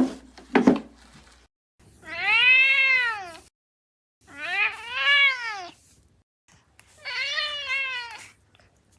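A domestic cat meowing three times, each a long drawn-out call that rises and then falls in pitch. Two short sharp sounds come first, within the first second.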